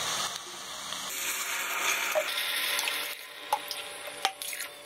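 Water poured into a hot pressure cooker over sautéed spinach and toor dal, hissing and sizzling as it hits the hot pan. The hiss fades after about three seconds, followed by a few light clicks.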